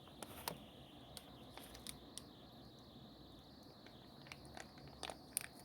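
Faint, scattered small clicks and taps against quiet room tone, a few at the start and a couple near the end.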